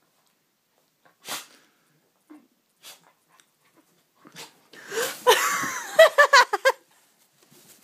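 Cocker spaniel puppy squealing and yelping in a loud scuffle on the bedding, the cries rising and falling and breaking into quick short yelps about five to seven seconds in, as it is knocked off the bed.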